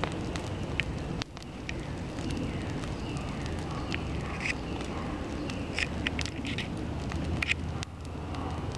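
Open fire crackling, with sharp irregular pops over a steady low rush.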